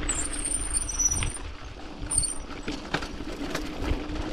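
Mountain bike rolling down a rough gravel dirt track: tyres crunching over loose stones, with a steady low rumble and many sharp clicks and rattles as the bike jolts over bumps.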